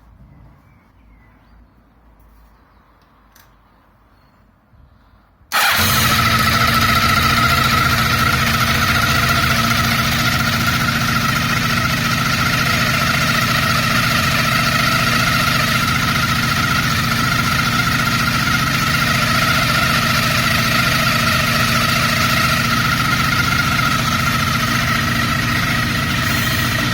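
Kawasaki GT550's inline-four engine starts abruptly about five seconds in and runs steadily, with a constant high-pitched whine riding over the engine note.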